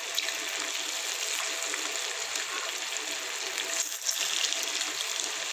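Spice-and-flour-coated cauliflower florets deep-frying in hot oil, giving a steady, even sizzle.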